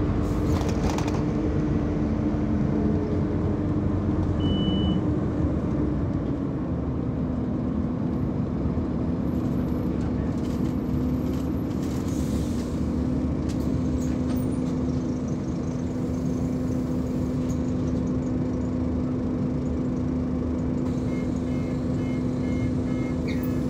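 Scania OmniCity single-deck bus heard from inside the saloon: the diesel engine running with a steady hum under road and cabin noise. The hum's pitch drops slightly about six seconds in and then holds. A few faint short beeps or ticks come near the end.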